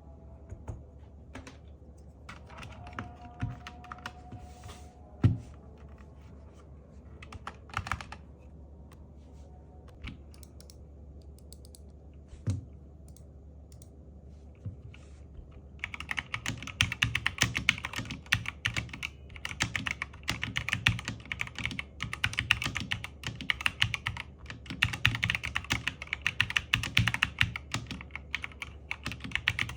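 Zifriend KA646 mechanical keyboard: scattered key clicks and a few dull thumps, then, about halfway through, fast continuous typing.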